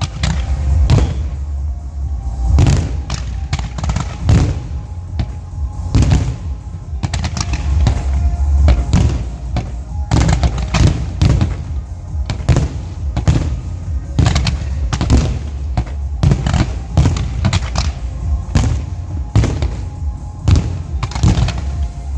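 Aerial fireworks going off in rapid succession, many sharp bangs and booms a second with heavy low rumble, over music.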